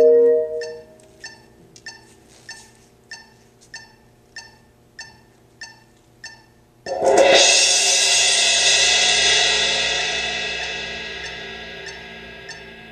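A Yamaha marimba chord rings and fades in the first second, followed by light, even taps on a suspended cymbal, about one and a half a second. About seven seconds in, a loud cymbal crash rings and slowly dies away, and the light taps return near the end.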